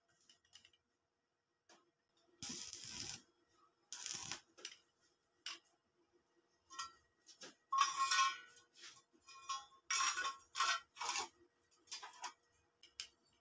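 Stick (arc) welder tack welding sheet-metal seams: a series of about eight short bursts of arc noise, the longest under a second, with pauses between them as the electrode is struck and lifted.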